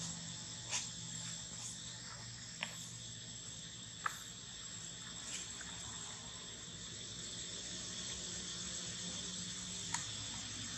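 Insects droning steadily outdoors, a high continuous tone over a low steady hum, broken by a few short sharp clicks.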